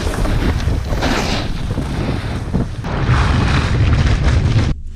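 Wind buffeting an action camera's microphone during a fast snowboard run downhill, mixed with the rush of board edges scraping over snow, swelling in surges; it cuts off suddenly near the end.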